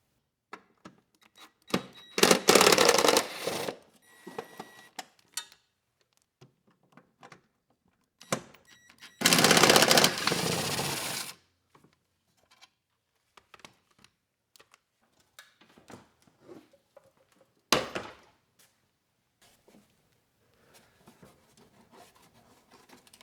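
A power driver spinning out the bolts that hold the plastic cover under the mower deck, in two runs of about two seconds each. Clicks and handling sounds come between them, and there is one sharp knock about three-quarters of the way in.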